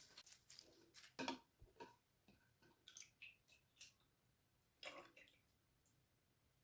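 Faint, scattered light clicks, taps and rubs of small household objects being handled and set down, the two clearest knocks about a second in and near five seconds.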